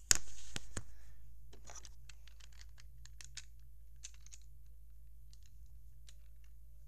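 Plastic LEGO pieces clicking as they are handled and pressed together. A sharp click comes right at the start and a few more follow within the first second. Then light clicks and rustles scatter over the next few seconds and thin out.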